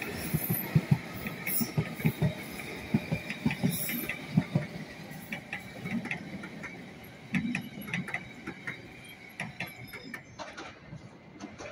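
London Underground S Stock train's wheels clattering over rail joints and points: a quick, irregular run of low knocks that thins out and fades over the first several seconds as the train draws away.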